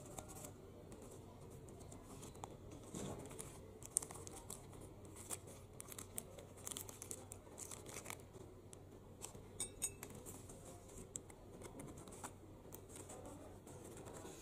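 Faint rustling and crinkling as a banana-leaf food parcel and a tied plastic bag are handled and unfolded by hand, with scattered small crackles and clicks and one sharper click about four seconds in.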